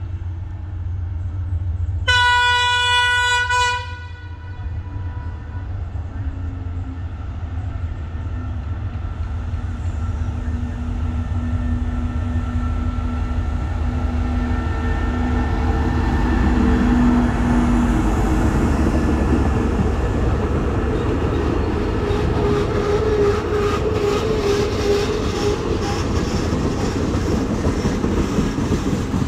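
A CSR diesel-electric locomotive gives one horn blast of under two seconds, about two seconds in. Its engine then runs louder as it approaches and passes hauling a container freight train. Near the end the wagons' wheels click rapidly over the rail joints.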